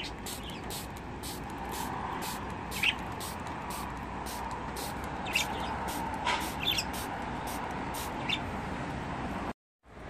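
Pet budgerigars giving a few short, scattered chirps over a steady background hum.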